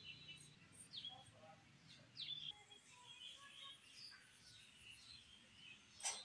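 Faint, scattered chirping of small birds, with a single sharp click just before the end.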